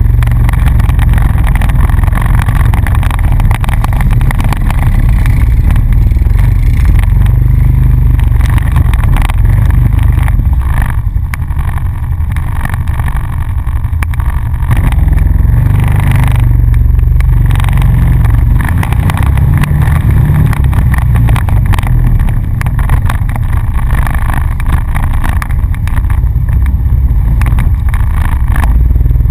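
ATV engine running steadily while riding along a rough dirt trail, with short knocks and rattles from the machine going over bumps.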